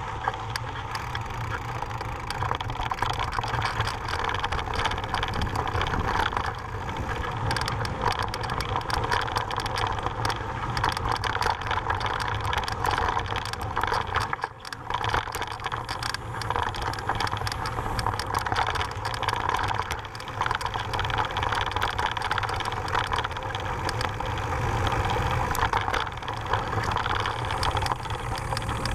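Mountain bike rolling over a gravel dirt trail: the tyres crunch on loose stones while the bike clicks and rattles over the bumps, and wind rushes over the helmet camera's mic. The sound dips briefly about halfway through.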